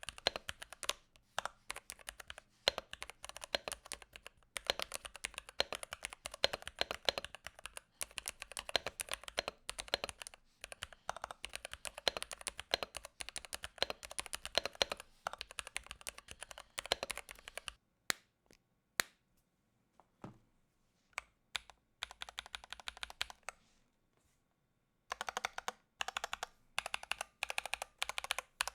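Typing on a NuPhy Halo65 mechanical keyboard: a fast, continuous run of key clicks, then a few scattered single keystrokes past the middle, a short pause, and steady typing again near the end.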